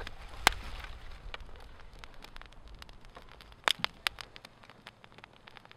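Small twig fire crackling, with scattered sharp snaps and pops; a few louder ones come close together about four seconds in.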